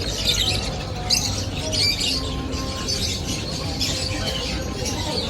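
A mass of caged birds chirping and squawking together, many short high calls overlapping throughout.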